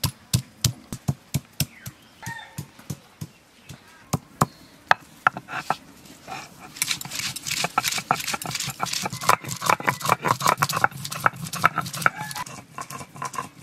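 Stone pestle striking ginger, garlic and green chillies on a flat stone grinding slab (shil-nora), sharp knocks about three a second. From about six seconds in the knocks give way to a rapid, rough scraping as the stone is rolled back and forth over the slab, grinding them to a paste.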